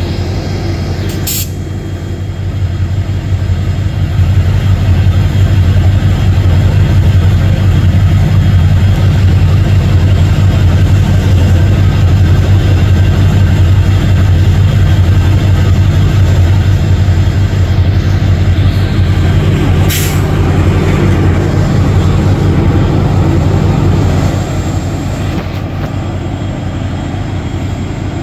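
Diesel generator set in an Indian Railways LHB luggage-brake-and-generator power car, running with a loud steady low hum as the express train draws in and comes to a stand. A brief sharp sound comes about a second in and another about 20 seconds in. The hum drops off somewhat near the end.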